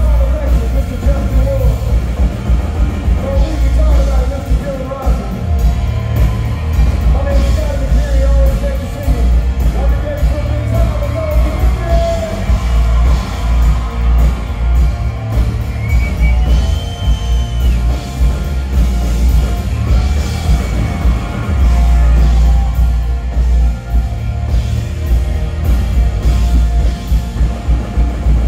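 Live country band playing loud on a concert stage: a singer over guitars, bass and drums, the bass heavy.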